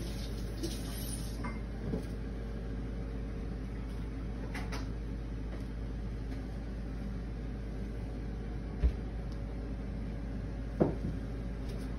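Kitchen background: a steady low hum with a few scattered light knocks and clicks, two of them sharper in the second half.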